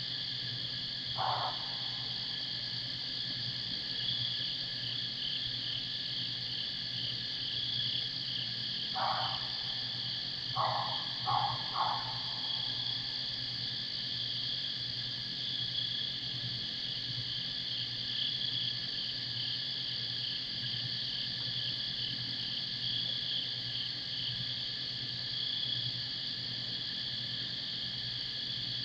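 Steady chorus of night insects, pulsing without a break. Over it, a few short calls from an unseen animal: one about a second in, then four close together from about nine to twelve seconds in.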